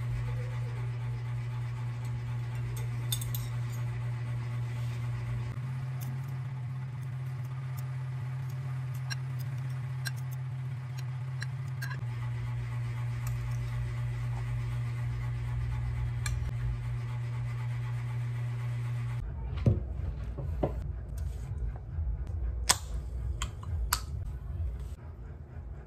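A steady low hum with occasional faint clinks of a metal fork and spoon against a ceramic bowl during eating. About 19 s in the hum stops abruptly, and a few louder clicks and knocks follow as a drink can is handled beside a glass.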